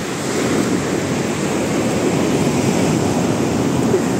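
Strong Pacific Ocean surf breaking on the shore: a steady rushing wash of waves that swells slightly in the first second.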